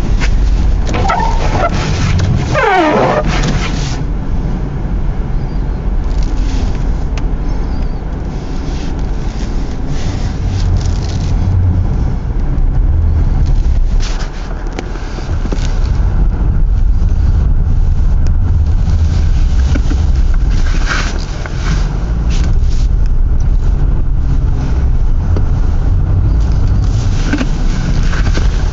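Vehicle driving through a blizzard: a steady low rumble of road and wind noise, with a brief high sound sliding down in pitch about two and a half seconds in.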